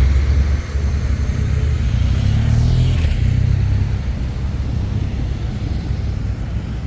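City road traffic rumbling, with a vehicle passing about two and a half seconds in.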